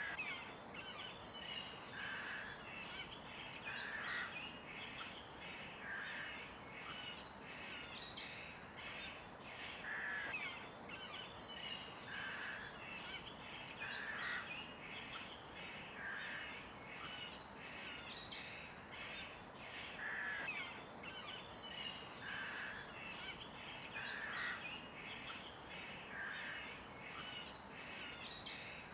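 Chorus of songbirds chirping and trilling busily, with a lower bird call repeating about every two seconds over a faint steady background hiss.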